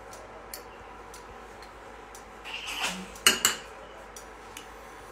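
Metal spoons clinking and scraping against dishes while curry paste is scraped off onto chicken wings: a few light taps, then a cluster of louder clinks about three seconds in, two of them sharpest.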